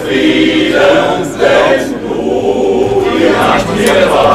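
Male voice choir singing together, many men's voices on one song.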